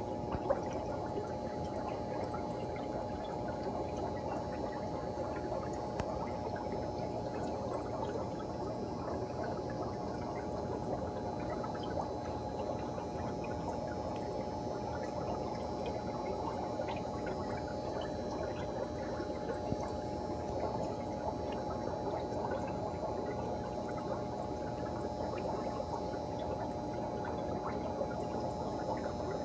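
Air-driven aquarium sponge filters bubbling and gurgling steadily, with a steady hum underneath.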